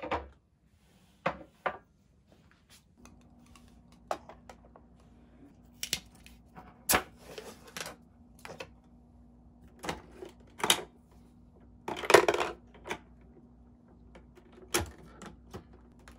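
Tableware and a metal coffee-capsule tin handled on a table: a string of sharp clicks and knocks as dishes are set down and the tin's lid and capsules are moved, with a longer rattle about twelve seconds in. A faint steady hum starts about three seconds in.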